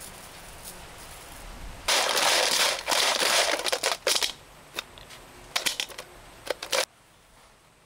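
A heap of scorpions being scooped and tossed by gloved hands in an aluminium basin: a dry rustling and crackling of their shells, loudest in two long bursts about two and three seconds in, then a few shorter crackles that stop suddenly near seven seconds.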